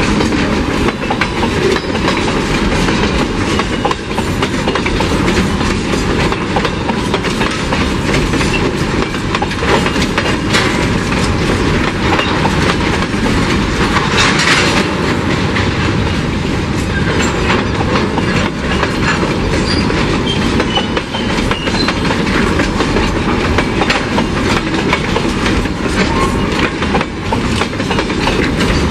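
Empty curtain-sided freight wagons rolling past close by, their wheels clicking over rail joints in a steady clickety-clack with constant rattling, and a brief hiss about halfway through.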